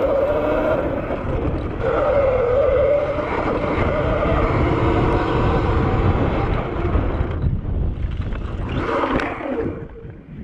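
Sur-Ron Firefly electric bike riding fast over rough trail: a wavering electric-motor whine that rises and falls with speed, over heavy wind noise on the microphone and rattling from the ground. Near the end the sound breaks up and drops as the bike goes down in a crash.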